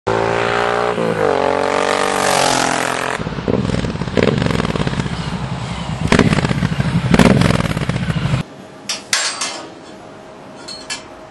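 Suzuki Boulevard M109's V-twin engine running through a stainless 2-into-1 exhaust, a real deep V-twin sound, with several throttle revs, the strongest about six and seven seconds in. The engine sound stops abruptly about eight and a half seconds in, leaving a faint steady hum and a few clicks.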